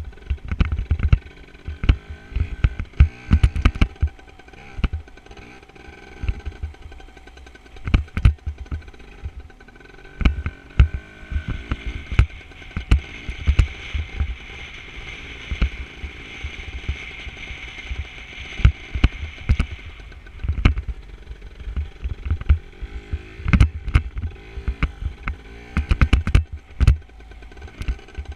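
Dirt bike ridden on a motocross track, heard from a helmet-mounted camera: the engine runs under heavy wind buffeting, with many sharp thumps on the microphone.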